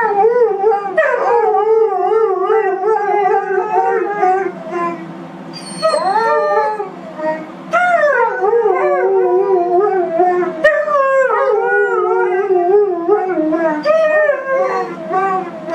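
Two husky-type dogs howling together in long, wavering howls that slide down in pitch at their ends, the voices overlapping at times.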